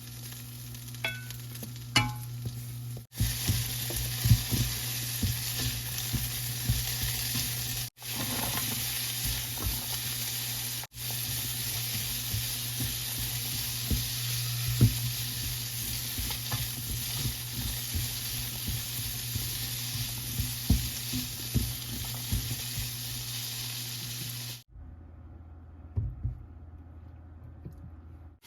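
Food frying in oil in a pan, a steady sizzle with occasional light taps of a utensil. The sizzle breaks off briefly a few times and stops near the end.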